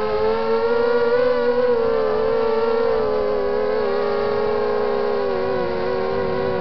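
Quadcopter's Emax 2300 kV brushless motors and propellers whining in flight, several close pitches wavering up and down with the throttle.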